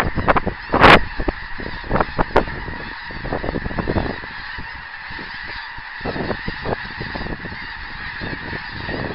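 A large flock of snow geese calling in flight overhead: a dense chorus of many overlapping honks and yelps, loudest about a second in and a little thinner in the middle.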